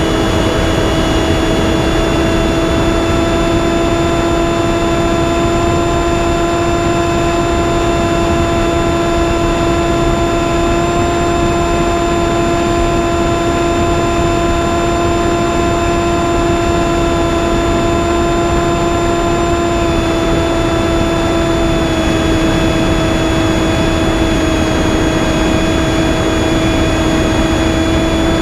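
Electric motor and propeller of a Finwing Penguin FPV plane in flight, a steady whine held at one pitch over rushing air noise, easing slightly lower about two-thirds of the way through.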